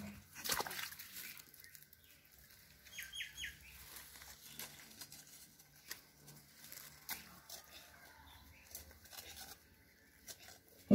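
A small hand hoe with a metal pipe handle scraping and knocking in wet, muddy soil, in scattered short strokes.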